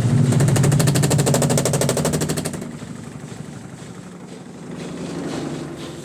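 Midea washing machine in its spin cycle, giving a fast, even rattle of many knocks a second that stops about two and a half seconds in, leaving a quieter steady hum. This is the noise during spinning whose cause the owner could not find.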